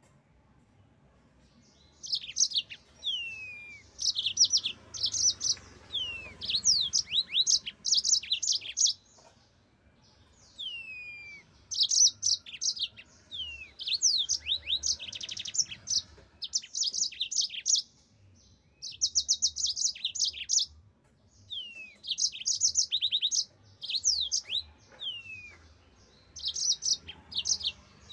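Yellow-fronted canary singing vigorously in phrases of a few seconds each: fast high trills and rattles mixed with quick downward-sliding whistles, broken by short pauses.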